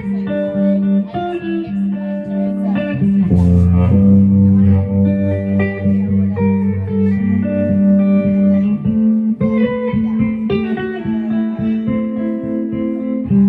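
Guitar music: plucked guitar notes over a sustained bass line.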